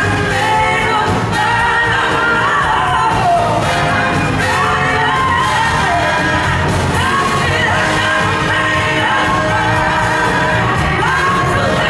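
Live blues-rock band playing: a woman singing lead over electric guitars and drums.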